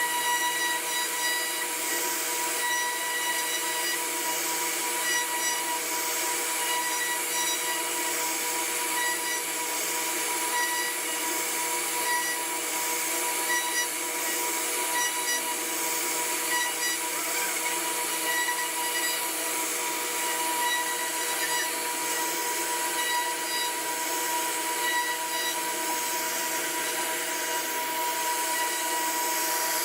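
CNC router spindle running with a steady high whine while it carves wood.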